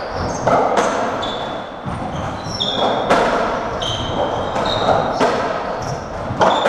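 Racketball rally on a squash court: the ball smacks off rackets, walls and the wooden floor about once a second, with short high squeaks of court shoes on the floor between the hits.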